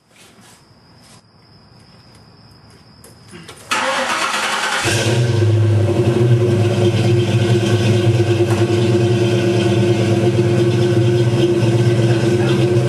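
A 1995 Mustang GT's 5.0 L (302) V8 breathing through Flowmaster mufflers is started. After a few faint clicks and a thin high tone, the starter cranks briefly about four seconds in. The engine catches about a second later and settles into a steady, loud idle.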